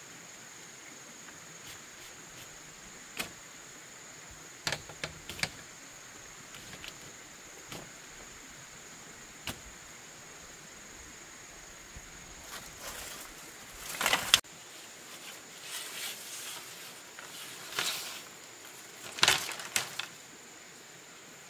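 Bamboo poles knocking and clattering as they are handled and set against a bamboo frame: scattered single knocks, then two louder rattling clatters, about two-thirds of the way in and near the end. A faint steady high-pitched whine sits underneath.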